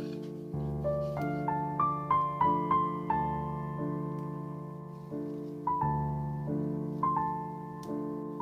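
Background piano music: gentle struck notes in a short melody over sustained low chords, each note ringing and fading.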